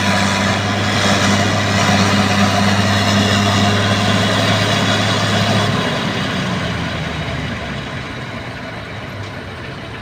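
Bulldozer's heavy diesel engine running steadily with a deep hum. About six seconds in the low note drops away and the engine grows gradually quieter.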